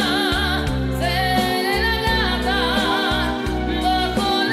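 A woman sings a slow ballad with wide vibrato over instrumental accompaniment with sustained low notes.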